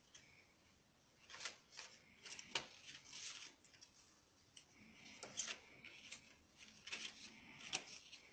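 Faint rustling and light clicks of paper letter cards being handled and swapped, with a few sharper ticks scattered through.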